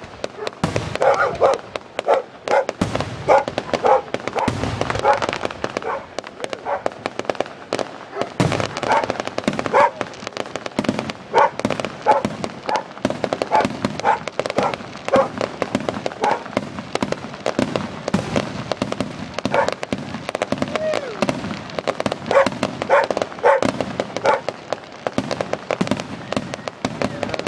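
Aerial fireworks shells bursting one after another, a dense run of bangs and crackling pops, with short repeated calls sounding between the bangs.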